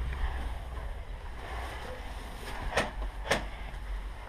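Two sharp cracks about half a second apart from airsoft gunfire, over a steady rumble of wind on the microphone.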